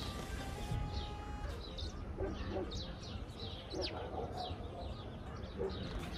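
A flock of sparrows chirping: many short, quick calls overlapping, over a low steady rumble.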